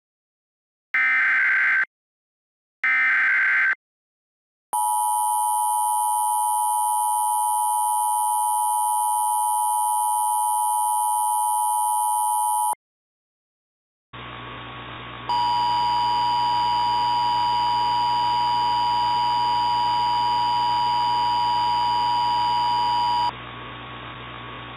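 Emergency Alert System tones. Two short SAME header data bursts come first, then the two-tone attention signal, held for about eight seconds. After a brief silence a steady hum with static comes in, and the two-tone attention signal sounds again over it for about eight seconds.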